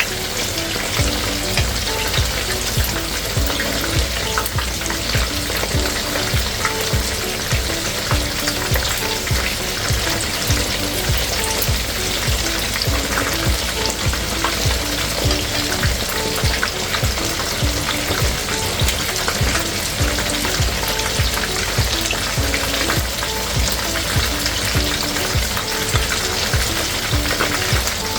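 Rice-flour-coated chicken wings frying in hot oil: a steady, dense sizzle with many small crackles and pops.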